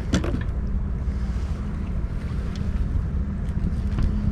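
A boat's engine droning steadily at low pitch, with wind rumbling on the microphone and a few light handling clicks.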